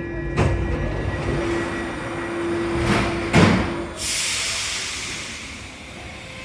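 Alstom MP14 metro train at a station: a steady tone sounds while knocks ring out, the loudest about three and a half seconds in. The tone stops with the last knock, and a sudden hiss follows.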